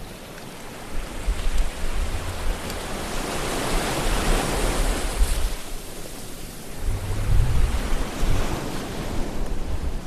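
Sea waves surging and washing in, the surf noise swelling about three to five seconds in and then falling away, with a low rumble in the bass around seven to eight seconds.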